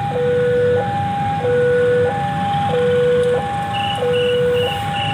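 Electronic two-tone alarm sounding a steady hi-lo pattern, each tone held a little over half a second, over a low rumble. A faster, higher beeping joins near the end.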